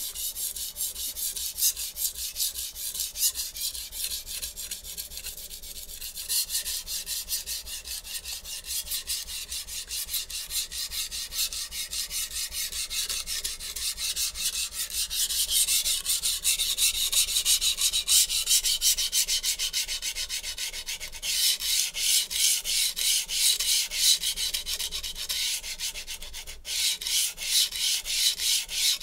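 HAP40 steel knife blade drawn in rapid, rhythmic back-and-forth strokes across a coarse 120-grit Shapton Glass whetstone: gritty steel-on-stone scraping while sharpening the edge. The stone has been freshly flattened with a 140-grit diamond plate, and its surface still feels rough. The strokes grow louder about halfway through, with a brief break near the end.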